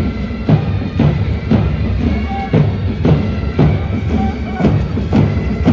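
Military march music with a steady drumbeat of about two beats a second, a few short held notes sounding over it.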